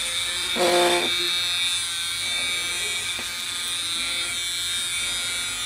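Homemade USB mini air blower running steadily: a high motor whine with a rush of air. A short, louder pitched hum comes just under a second in.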